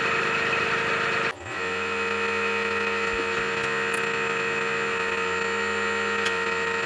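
Machine-shop drilling machine running steadily with a constant motor hum, with a short break about a second in; it cuts off abruptly at the end.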